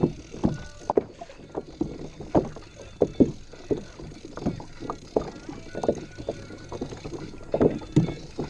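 Small waves slapping and knocking irregularly against a plastic Hobie Compass kayak hull, a few sharp slaps a second.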